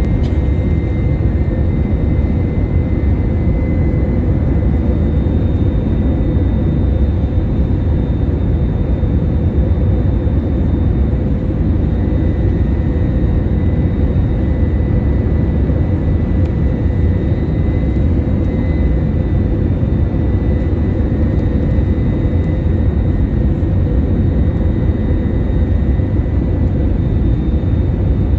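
Cabin noise inside an Airbus A321 on approach to landing: a steady, even rumble of engines and airflow with a faint steady whine over it.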